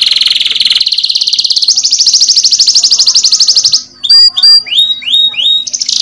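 Domestic canary singing: long, fast trills ('rolls') of rapidly repeated notes, a short break almost four seconds in, then a handful of separate rising whistled notes before the trilling resumes near the end.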